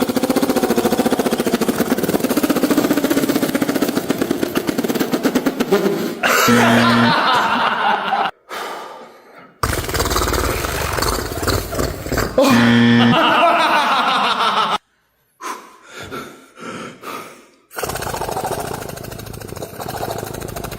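A string of short, abruptly cut comedy sound clips: a fast rattling buzz for the first few seconds, then music and laughter.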